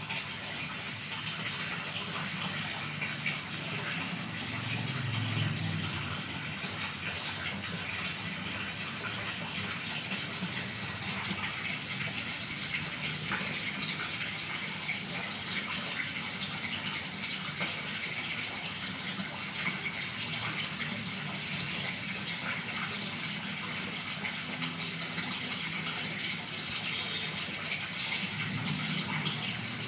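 Steady rush of water running and churning in a fish aquarium.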